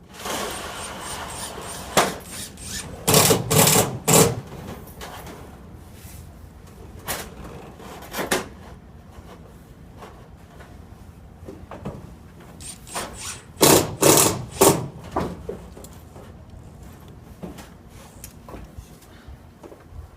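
Irregular knocks and clatter of sheet-metal roof flashing being handled and fitted, with single strikes and two dense flurries of knocking, about 3 seconds in and again about 14 seconds in.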